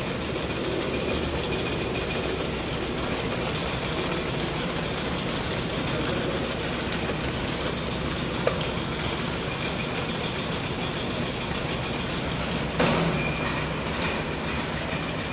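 Steady mechanical running noise: an even hiss over a low hum. There is a small click about eight seconds in and a short knock near the end.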